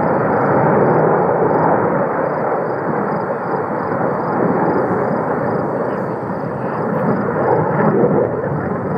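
Jet noise from a formation of four F/A-18 Hornets flying a loop: a loud, steady rushing sound with no break, swelling slightly near the end.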